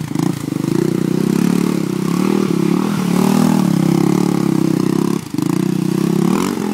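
Yamaha Raptor 660 quad's single-cylinder four-stroke engine revving up and down under load as it spins through deep mud, with a brief drop-off of throttle about five seconds in.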